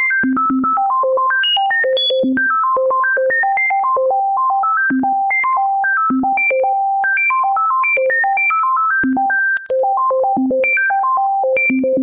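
Synthesizer music: a fast, unbroken stream of short, clean electronic notes, about six a second, leaping up and down between low and high pitches without a repeating tune. It is a note sequence generated from prime numbers.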